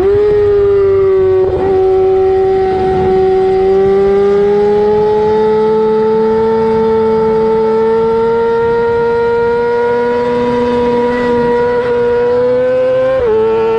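Superbike engine howling at high revs under throttle, its pitch climbing slowly through a long bend, then briefly dipping and picking back up near the end. Wind rush sits underneath.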